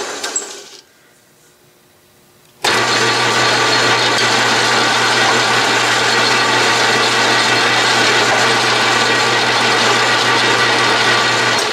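Atlas/Craftsman 12-inch metal lathe winding down to a stop, then, after about two seconds of quiet, switched on again and running steadily with a constant hum as the threading tool takes a pass along the thread.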